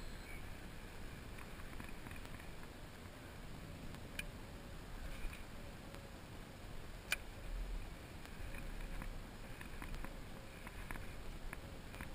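Low wind rumble on the microphone and water slapping against a kayak hull, with a few sharp clicks, the loudest about seven seconds in.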